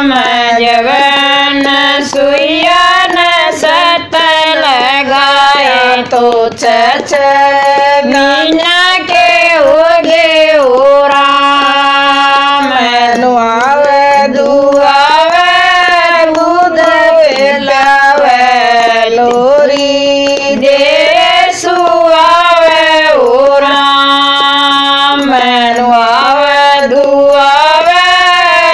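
Women singing a Haryanvi devotional bhajan, one melody line with long held notes that bend up and down.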